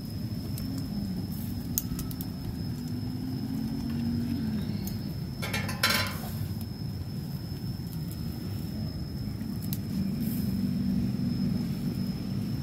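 Kitchen scissors and metal tongs clicking against a plate as grilled meat is cut. About six seconds in comes a short clatter as the scissors are set down on the table. A steady low rumble runs underneath.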